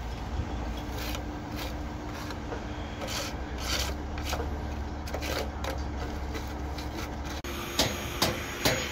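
Hand trowel scraping and smoothing wet concrete, in uneven repeated strokes. Near the end a few sharp knocks follow.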